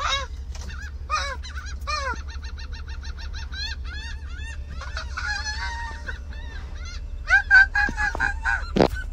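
A flock of laughing gulls calling, many overlapping runs of short, arched notes, loudest about seven to eight seconds in.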